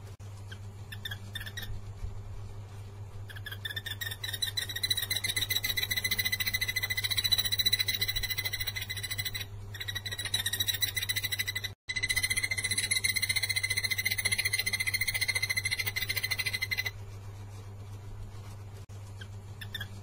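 Takur tenggeret barbet (yellow-eared barbet) giving its cicada-like song: a long, rapid run of identical notes at one steady pitch that starts a few seconds in, breaks off briefly twice, and stops about three seconds before the end. A steady low hum runs underneath.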